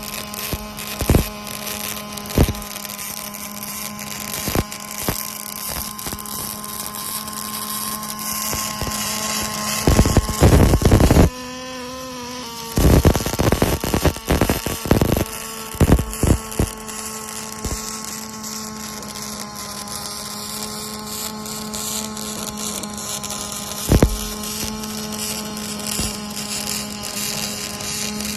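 Robotic arc-welding cell at work: a steady electrical hum with scattered sharp crackles, and stretches of loud, dense welding-arc crackle about ten seconds in and again a little after the middle.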